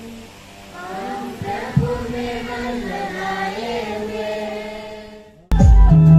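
Voices singing a slow, chant-like hymn in held notes. About five and a half seconds in, it cuts abruptly to much louder electronic organ music.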